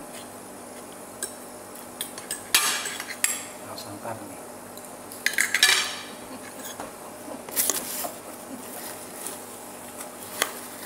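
Metal fork and knife clinking and scraping on ceramic plates as food is cut and picked up, in short bursts, the loudest about two and a half and five and a half seconds in.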